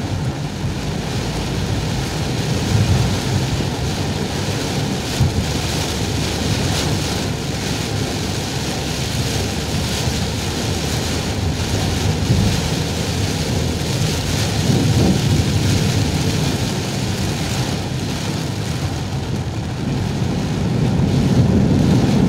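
Very heavy rain drumming on a moving car's roof and windshield, heard from inside the cabin as a loud, dense rushing noise with a low rumble.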